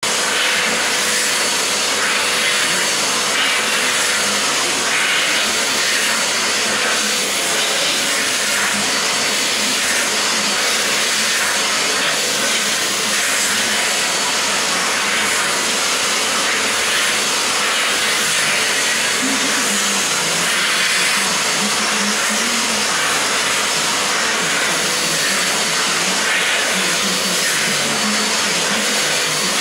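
Vacuum cleaner running steadily, its nozzle being passed over a long-haired cat's fur, with a thin steady whine over the rushing air.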